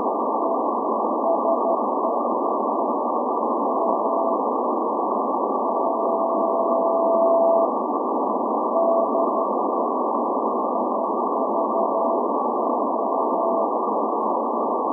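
Shortwave Morse code from SVO, the Athens maritime coast station's channel marker on 8424 kHz, received in CW mode as a steady tone of about 700 Hz. The tone is keyed on and off in short and longer marks, with one long tone of about two seconds a little past the middle. It sits in loud, narrow-filtered shortwave static hiss.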